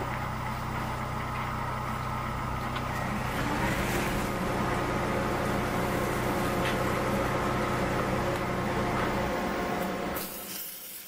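Wood lathe running steadily with a motor hum and whine, its pitch rising briefly about three seconds in. Near the end the hum drops away and abrasive rubs against the spinning hard maple vase as it is sanded.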